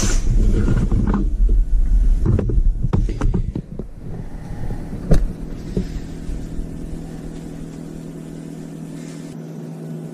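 Handling noise from a camera being moved: a loud, jumbled low rumble with scattered clicks and knocks for the first three and a half seconds. After that comes a quieter steady low hum, with one sharp click about five seconds in.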